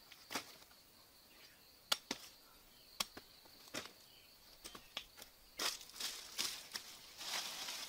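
Scattered sharp snaps and knocks as banana stalk pieces are handled and dropped, then rustling bare footsteps on dry leaf litter about five and a half seconds in and again near the end. A steady high insect trill runs underneath.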